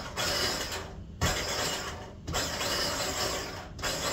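Small electric food chopper run in pulses, chopping celery and onion: about four short bursts of the motor and blades, each cut off briefly before the next.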